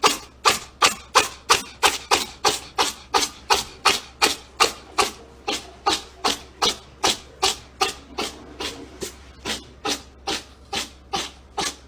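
Rhythmic scratching or rasping strokes, about three a second, kept up at an even pace.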